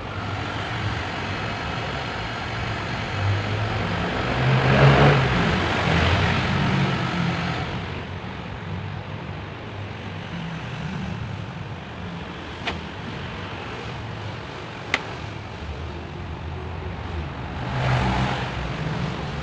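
Heat gun blowing steadily on a plastic bumper to soften a dent, its fan and airflow swelling louder twice. Two sharp clicks come in the middle.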